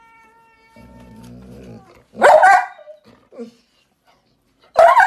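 A dog growls low for about a second, then gives two short, loud barks about two and a half seconds apart.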